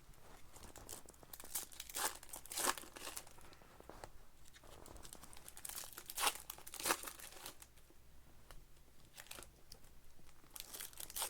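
Foil or plastic trading-card pack wrappers crinkling and rustling in short, crisp bursts as packs and cards are handled, with a few louder crackles about two seconds in, around six to seven seconds in, and near the end.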